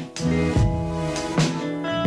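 Background music: pitched instrument notes over a drum beat with a strike about every half second.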